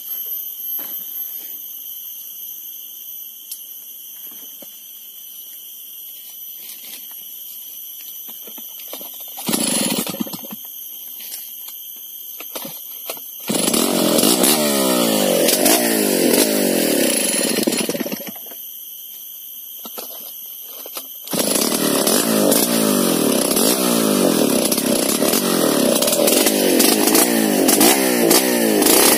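Stihl chainsaw being started: a brief burst about ten seconds in, then the engine runs with rising and falling revs for about five seconds, cuts out, and starts again to run on with changing revs. A steady high-pitched buzz sits in the background, heard alone in the gaps.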